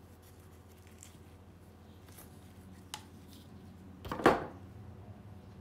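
Small metal model-car part being worked with pliers: a few faint clicks, a sharp click about three seconds in, and a louder short clatter just after four seconds, over a steady low hum.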